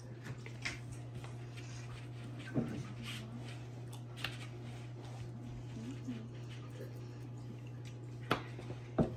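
Steady low hum of a window air conditioner in a quiet room, with a few soft taps of a fork on a plate and brief faint murmurs.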